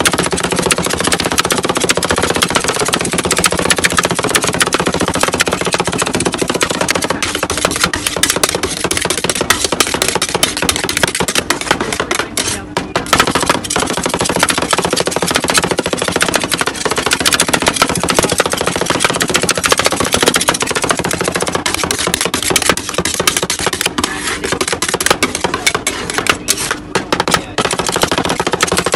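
Two metal spatulas chopping and scraping fresh fruit and cream on a steel rolled-ice-cream cold plate: a fast, continuous rattle of metal-on-metal taps, with a brief pause about halfway through. A steady low hum runs underneath.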